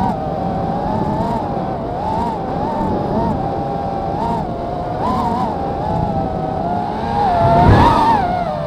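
An FPV racing quadcopter's brushless motors and propellers whine, heard from its onboard camera, with the pitch rising and falling as the throttle changes. Near the end a brief louder surge brings a low rumble.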